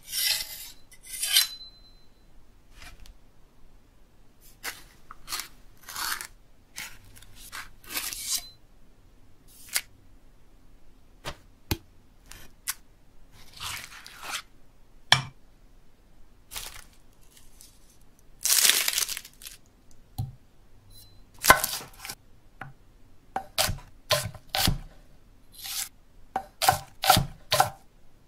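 A run of knife-and-cutting-board sounds: a large knife blade scraped across a sharpening stone at the start, then scattered short scrapes and taps, with one long, loud scrape about two-thirds through. Near the end a cleaver chops quickly on a wooden block, clicking against plastic dice.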